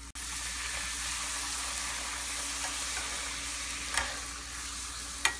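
A puri deep-frying in hot oil: the sizzling starts suddenly as the dough goes in and carries on steadily while it is pressed with a slotted spoon to make it puff. Two sharp clicks, about four seconds in and near the end.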